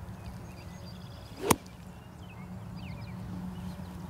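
A single golf practice swing: a quick whoosh of the club rising to a sharp swish about a second and a half in.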